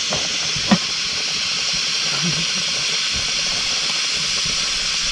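Aluminium pressure cooker on a wood fire venting steam through its weight valve: a steady, loud hiss, the sign that the cooker is up to pressure. A light click sounds under a second in.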